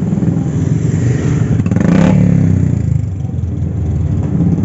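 Motorcycle engines running as bikes ride past close by, one passing loudest about two seconds in.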